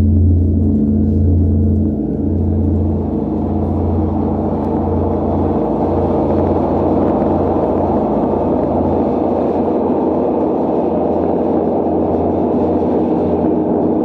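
Large Paiste gong ringing on after a single padded-mallet strike: a deep low hum that throbs and wavers under a steady shimmer, fading only slowly.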